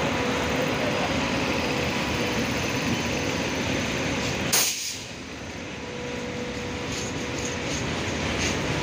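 A passenger train's coaches rolling past at low speed: a steady running rumble with a faint whine. About halfway through comes a sudden, very short sharp noise, the loudest moment; after it the sound is quieter for a while, and near the end come a few light clicks of wheels over the rail joints.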